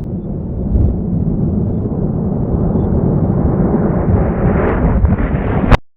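A deep, steady rumbling noise whose upper edge slowly rises over several seconds, ending in one sharp loud crack and an abrupt cut to silence.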